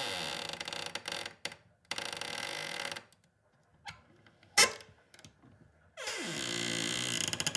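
A hinge creaking loudly as it is swung at different speeds: a drawn-out creak fading out about a second in, a few short broken creaks, one sharp squeak about four and a half seconds in, and a new long creak starting near the end.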